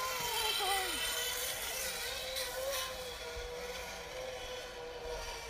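Zip line trolley's pulley wheels rolling along the steel cable: a steady whine that slowly falls in pitch as the ride goes on.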